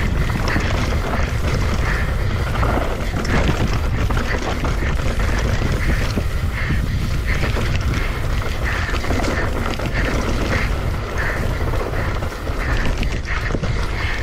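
Mountain bike riding fast down a dry, rocky dirt trail: tyres crunching over dirt and loose stones and the bike rattling, over a steady low rumble of wind buffeting the chest-mounted action camera's microphone.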